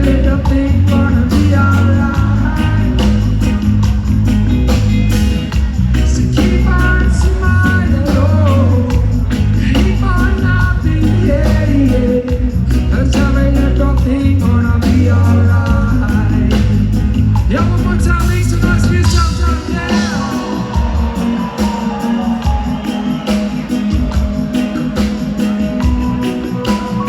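Live reggae band playing, a singer's voice over a heavy bass line; about twenty seconds in the deep bass drops away.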